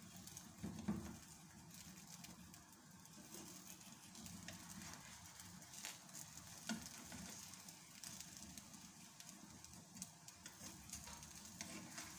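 Faint sizzle of an egg paratha frying in a nonstick pan, with a few light taps and scrapes of a spatula against the pan.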